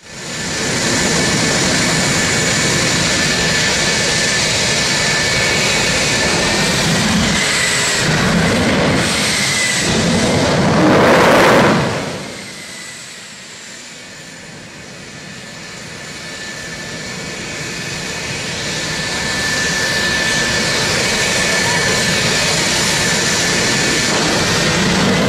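The twin General Electric J79 turbojets of a McDonnell Douglas RF-4E Phantom II running at high power on the ground: a loud jet roar with high-pitched whines. It swells just before 12 s, falls away sharply, then builds back up over several seconds and holds steady.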